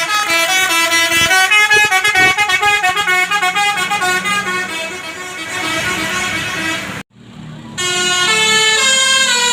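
Tour bus's Basuri telolet horn playing a quick tune of stepped notes. It breaks off for a moment about seven seconds in, then starts another melody.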